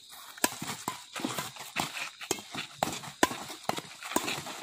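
Badminton rally: rackets striking the shuttlecock in a quick exchange of sharp hits, about two a second.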